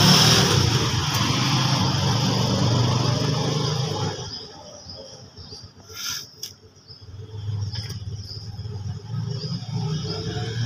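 Outdoor street noise of a vehicle passing, which dies away about four seconds in, leaving insects chirping steadily, with a couple of faint clicks.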